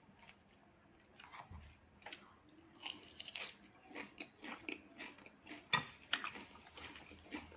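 Close-up chewing of a mouthful of raw leafy vegetable salad: soft, irregular crunches and wet mouth clicks, starting about a second in.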